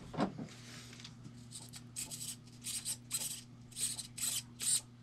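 Electric motors of a radio-controlled rock crawler, its servos and drive motor, whirring in a rapid series of short high-pitched bursts as the radio controls are worked on the first power-up, starting about a second and a half in.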